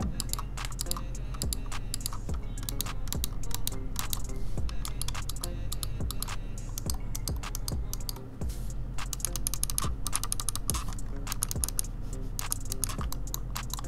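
Technozone V6 gaming mouse's buttons clicked rapidly and repeatedly, a dense run of sharp plastic clicks, over background music with a steady low beat.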